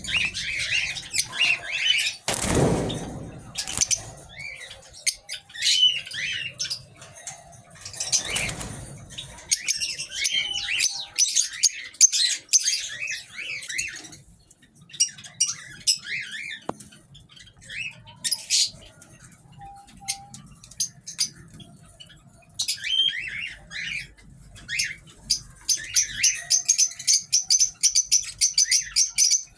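A flock of small aviary birds chirping and squawking over one another, with many short overlapping calls. A few loud whooshes come in the first several seconds, and a fast, steady chatter builds near the end.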